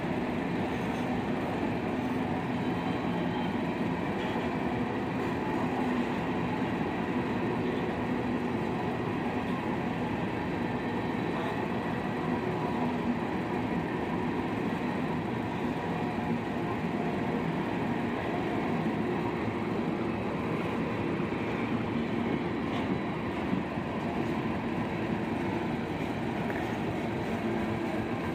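Freight train of covered hopper cars rolling past close by: steady rumble of steel wheels on the rails.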